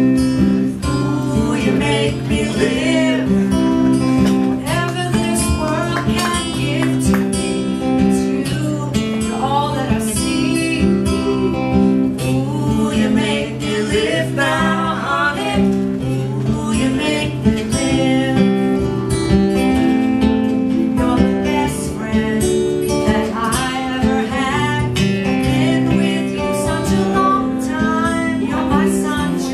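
Acoustic guitar strummed live with a woman and a man singing a song together; the voices come in about two seconds in.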